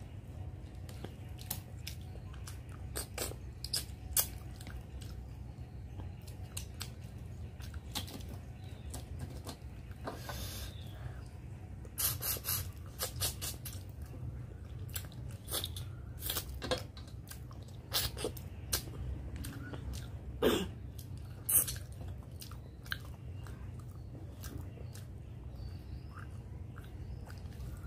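Close-up eating sounds of katla fish head curry and rice eaten by hand: wet chewing and smacking with irregular small crunches and clicks as the fish head is chewed, a few louder ones midway, over a steady low hum.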